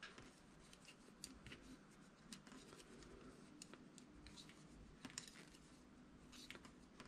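Faint, irregular small clicks and scrapes of knitting needles as stitches are knitted one after another.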